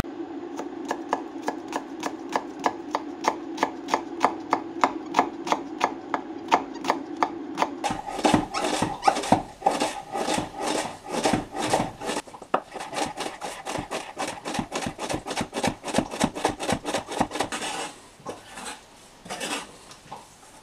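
Chef's knife chopping a shallot on a wooden cutting board. Evenly spaced knife strokes come about three a second, then become faster and denser after about eight seconds as the shallot is minced, and thin out and stop near the end.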